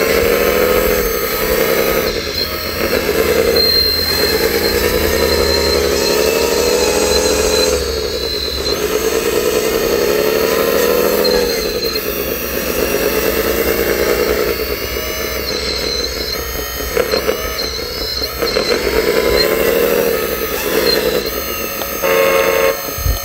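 Remote-control model wheel loader's motors whining, the pitch sweeping up and down again and again, every second or two, as it drives and works its bucket loading dirt.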